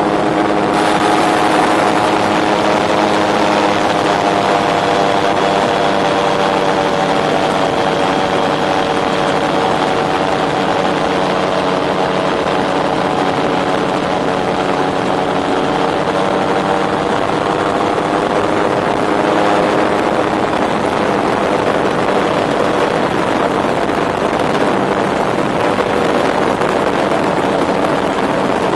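Turbocharged Rotax 914 flat-four engine of a Tandem Dominator gyroplane running steadily in cruise flight, heard from the open cockpit as a constant drone under heavy wind rush.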